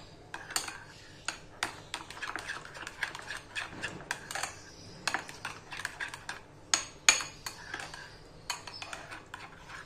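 Metal spoon stirring thick yogurt in a ceramic bowl, with irregular clinks and scrapes of the spoon against the bowl, a couple of louder clinks about seven seconds in.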